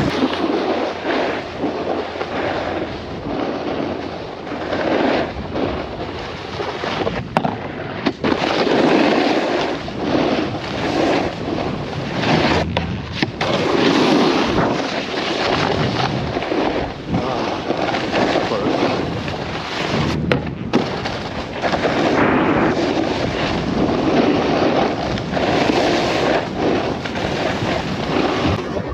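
Snowboard edges scraping and carving across snow, with wind buffeting a helmet-mounted camera's microphone. The noise surges and eases with each turn, and drops out briefly a few times.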